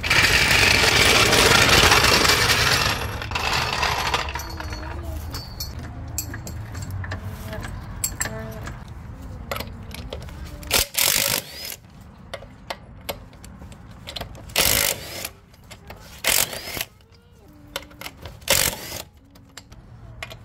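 Wheel-change work on a car: a power tool runs loud and steady for about the first three seconds, then scattered metallic clinks and clanks of lug nuts, spacer and tools follow, the loudest from about halfway on.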